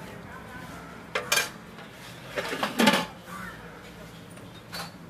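A metal ladle and a plate clinking and clattering against a big metal stew pot as chicken stew is served: two sharp clinks about a second in, a louder clatter from about two and a half to three seconds, and a lighter clink near the end.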